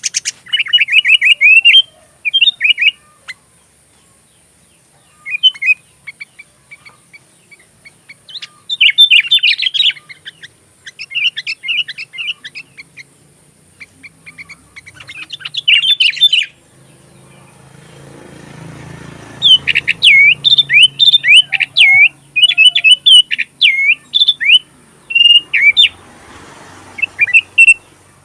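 Sooty-headed bulbul (kutilang) singing in bursts of quick, chirping phrases with short pauses between them, a song filled with learned oriental magpie-robin (kacer) phrases.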